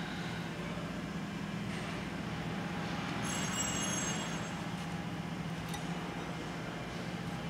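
Steady low hum of workshop machinery, with a brief high-pitched squeal lasting about a second, about three seconds in.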